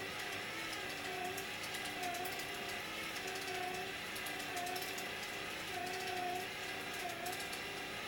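Destination roll sign from a JR 211-series train winding its film: the sign's motor and gears run with a steady whine that wavers up and down in pitch, with light ticking.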